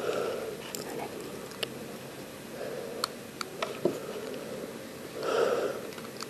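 A person breathing out softly through the nose about every two and a half seconds, with a few small clicks and taps of plastic equipment being handled at an infant manikin's mouth during intubation with a laryngoscope and endotracheal tube.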